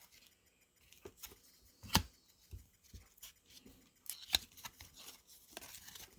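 Trading cards being handled: scattered soft slides and taps of card stock, with a sharper click about two seconds in and a small cluster of scrapes past the middle.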